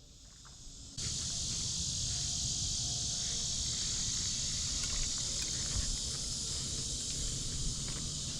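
Steady chorus of insects, an even high-pitched buzz that starts abruptly about a second in, with a low rumble underneath.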